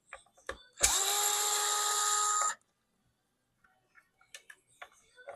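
Electric screwdriver running for about two seconds, spinning out a screw from an Xbox Series X's casing; its motor spins up quickly, holds a steady whine, then stops sharply. A few light clicks follow.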